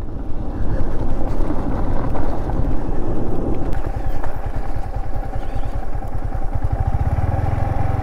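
Sports bike's engine running at low speed over a rough dirt track, its note quickening and steadying about seven seconds in as the throttle opens.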